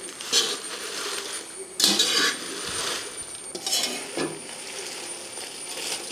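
Two metal ladles scraping and clinking against a metal kadai, tossing dried red chillies frying in coconut oil, about five strokes with a faint sizzle between. The chillies rustle crisply as they turn, the 'karukuru' sound that tells they are roasted enough.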